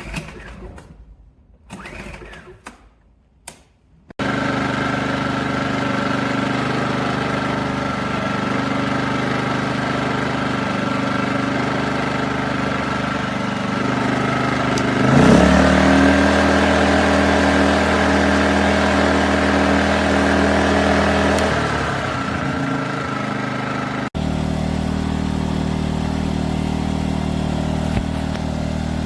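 WEN 56235i inverter generator's small engine running steadily. About 15 seconds in it speeds up and its pitch rises, settling back down a few seconds later, as an inverter generator does when it raises its speed for a load or out of eco mode.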